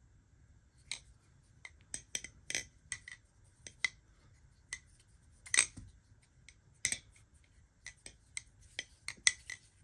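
Balisong (butterfly knife) being flipped: irregular sharp metallic clicks and clacks as the handles swing around the blade and knock shut, the two loudest a little past halfway. A clean flipping sound that the flipper calls good.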